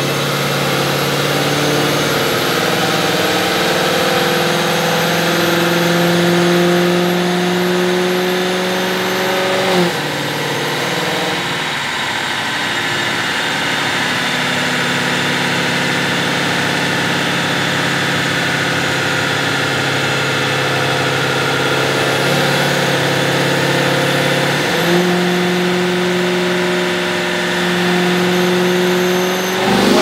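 2018 Camaro SS's 6.2-litre LT1 V8 running on a chassis dyno, breathing through long-tube headers, an X-pipe and the stock NPP exhaust. The engine note climbs slowly in pitch for about ten seconds, drops abruptly, holds lower for a while, steps back up and climbs again, then drops sharply right at the end.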